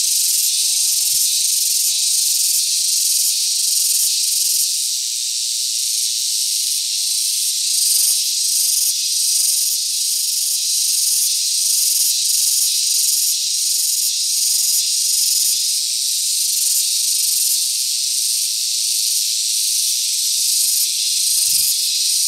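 Insect chorus buzzing loudly and steadily at a high pitch, with a slight pulsing.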